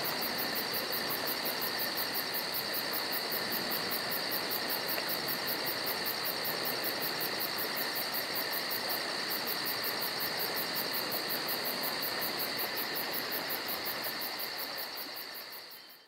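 Steady high-pitched insect trilling, like crickets, with a faster pulsing chirr above it; it fades out over the last two seconds.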